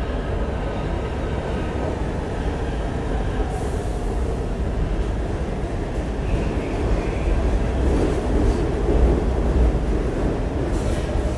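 New York City subway train of R46 cars pulling into the station on the local track: a steady rumble of wheels on rail, growing louder as the cars pass, with a faint wheel squeal starting near the end as it slows.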